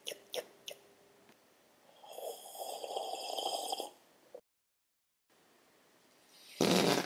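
Eating sound effects made with a child's mouth: a few short chewing clicks, then a noise held for about two seconds, and a short loud breathy burst near the end.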